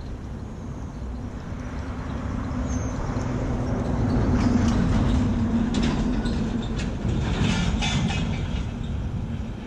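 A motor vehicle passing by, its engine hum and road noise growing louder for about four seconds and then slowly fading, with a few light clicks and rattles as it goes.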